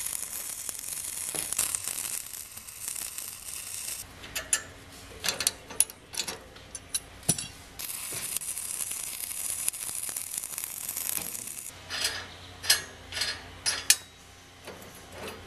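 Stick welding arc crackling and hissing for about four seconds, then scattered metal clinks, then a second weld of about four seconds. Near the end come several sharp metallic knocks as the steel is handled.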